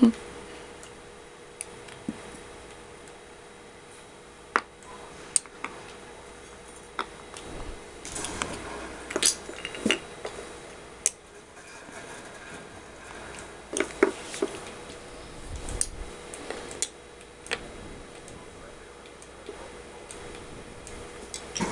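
Wooden magnetic puzzle pieces and a magnet clicking and clacking against each other and the wooden puzzle board as a toddler picks the pieces out. The clicks are scattered, with busier stretches about eight to ten seconds in and again around fourteen to seventeen.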